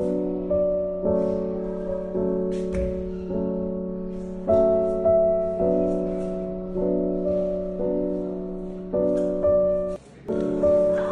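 Background piano music: gentle chords struck one after another, each fading before the next, with a brief gap about ten seconds in.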